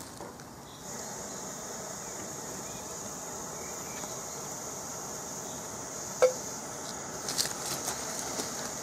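Coleman 533 dual-fuel camp stove burner hissing steadily once lit, starting suddenly about a second in. A sharp metal clink comes about six seconds in, with a few lighter clinks near the end as the kettle and cookware are handled.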